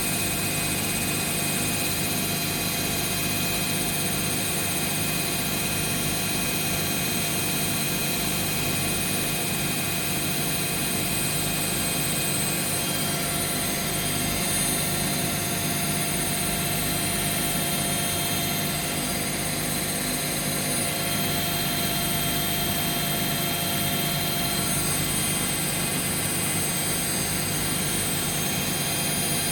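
A Bosch and a Hoover washing machine in their final high-speed spin at the same time, the Bosch at up to 1200 rpm: a steady drum and motor whine made of several steady tones. Partway through, some of the tones drop out and others take over.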